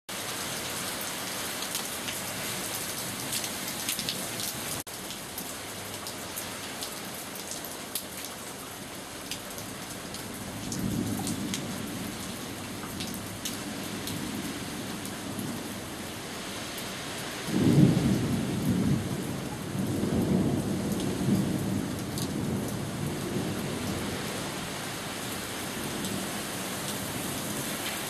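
Steady rain falling, with many small drop ticks, and rolling thunder rumbling low several times in the second half, the loudest peal about two-thirds of the way through.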